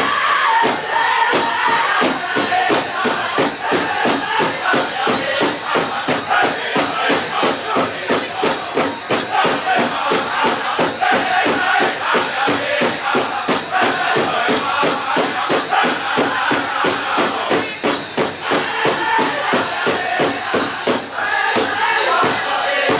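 Powwow drum group playing a men's chicken dance song: a fast, steady drumbeat with the singers' high voices, strongest at the start and again near the end, over the jingle of the dancers' bells.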